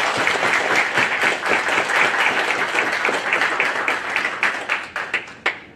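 A roomful of people applauding, many hands clapping together; the clapping thins out near the end and stops.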